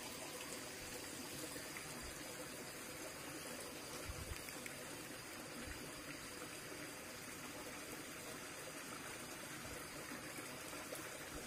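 Steady rush of a rocky stream's water flowing, with a few faint low knocks.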